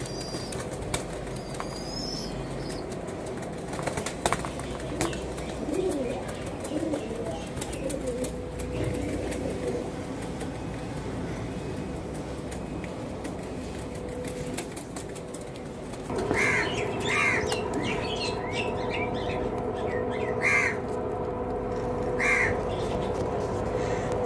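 Domestic pigeons: a flurry of wing flapping near the start, then low cooing. In the last third, short higher calls and sharp taps sound over a steady hum.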